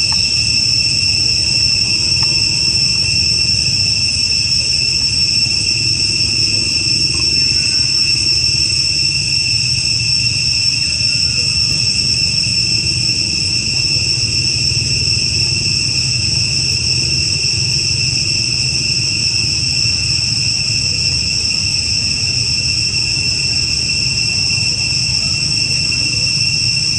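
A chorus of insects buzzing in one continuous high, shrill drone that holds steady the whole time, over a low rumble.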